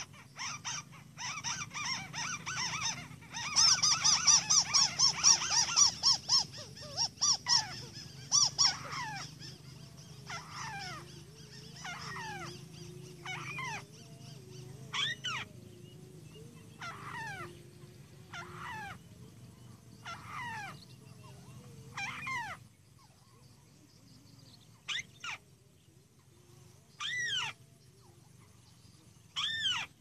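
White-browed crake calling: a loud, rapid chattering burst for the first several seconds, then a series of single nasal calls that fall steeply in pitch, about one every one to two seconds.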